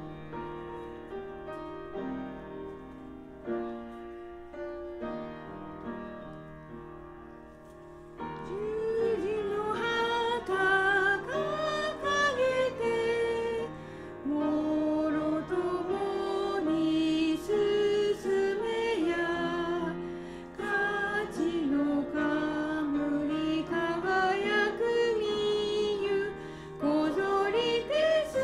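Piano plays a hymn introduction. About eight seconds in, voices join and sing the hymn in Japanese to the piano accompaniment, and the music gets louder.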